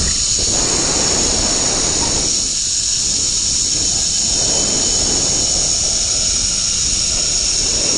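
Zip-line trolley running fast along the steel cable: a steady high-pitched whine with a rushing noise underneath, held at an even level throughout.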